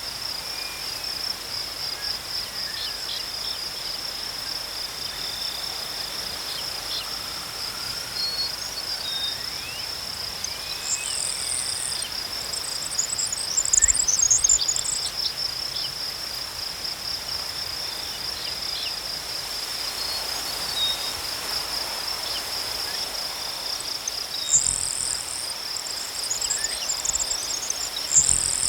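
Crickets chirping in a steady, fast-pulsing trill, with a second, fainter cricket trilling lower. Higher, scratchier chirps join twice, in the middle and near the end.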